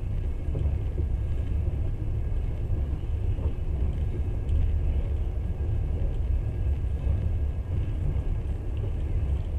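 Steady low rumble of a passenger train running along the line, heard from inside the carriage.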